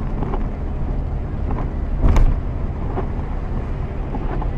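A car driving through heavy rain on a flooded road, heard from inside the cabin: steady low road and tyre noise with water spray and scattered knocks, the loudest about two seconds in.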